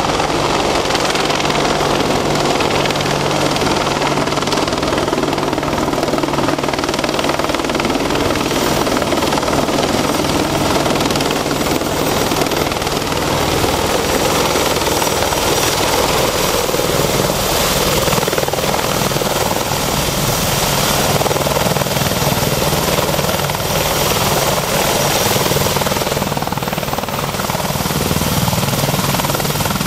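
AH-64D Longbow Apache attack helicopter running: a loud, steady rotor and turbine noise with a constant low hum.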